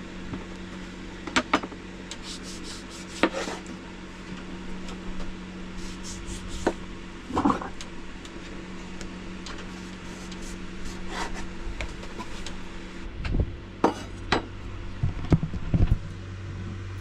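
Knife and hands working a pamplemousse on a wooden cutting board: scattered scrapes, clicks and small knocks, with a burst of louder knocks near the end. A steady low hum runs underneath and drops lower partway through.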